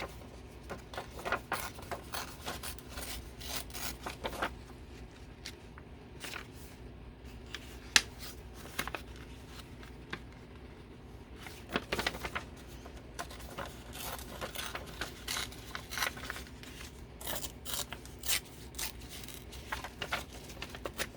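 Paper and craft materials being handled on a work table: irregular rustling, small taps and scissor-like snips, with one sharp tap about eight seconds in.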